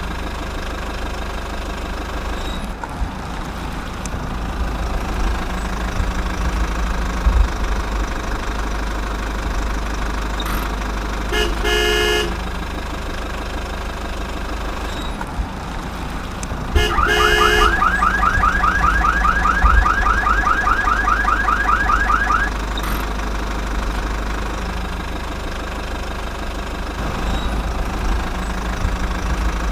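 RC toy construction vehicle playing its electronic sound effects: a steady engine-idle sound, two short horn beeps about twelve and seventeen seconds in, and a rapid warbling alarm for about five seconds after the second beep.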